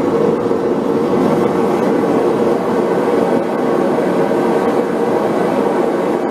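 Propane forge burner running: a loud, steady rushing noise with no hammer blows.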